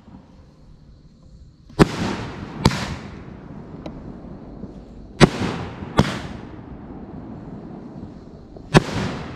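Pyro King Major Riot 500-gram firework cake firing its 1.5-inch ball shells: sharp bangs come in pairs less than a second apart, with a pause of about two and a half seconds between pairs. A fading hiss trails after each pair.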